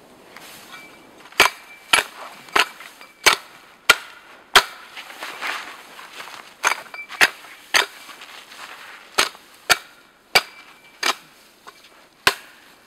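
Homemade Russian-pattern axe chopping the twigs off a spruce branch: sharp, crisp strikes about two a second, in runs of three to six with short pauses between.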